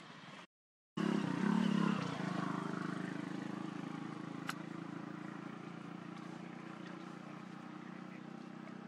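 Motor engine running steadily. It starts abruptly after a short dropout, is loudest at first and slowly fades, with a single sharp click near the middle.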